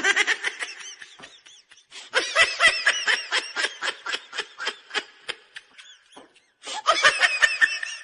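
High-pitched giggling laughter in rapid repeated pulses, coming in three bouts with short gaps between them.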